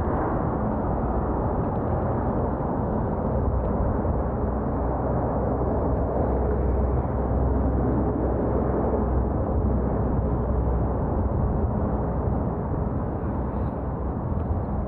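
Steady low rumble of wind and road noise picked up while riding a bicycle.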